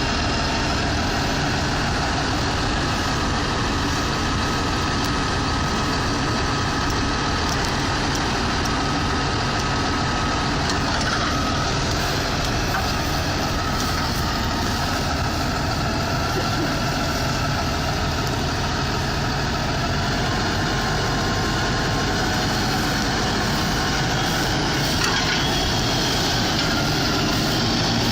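Fendt 930 tractor's diesel engine running steadily under load while pulling front and rear ploughs.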